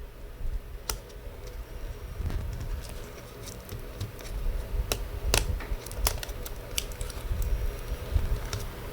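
Scattered sharp clicks and small taps of hand work on an opened laptop's small parts and tools, a few louder ones about five to six seconds in, over a low rumble of handling noise.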